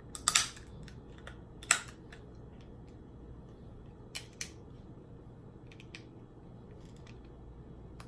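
Crab leg shell cracking and snapping between teeth and fingers, close to the microphone: two sharp cracks in the first two seconds, then a few smaller snaps around four and six seconds in.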